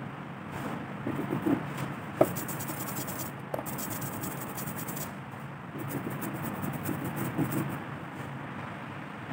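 Rubber brayer rolled back and forth through tacky printing ink on an inking slab, a rubbing sound with a fine crackle, and a single sharp click about two seconds in.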